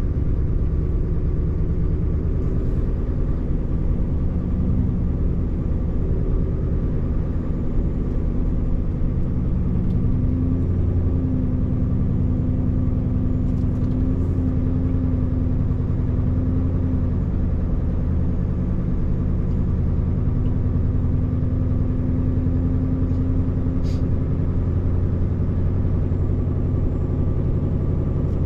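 Scania 590S truck's 13-litre inline-six diesel engine running steadily while driving, heard from inside the cab as a low drone mixed with tyre and road noise.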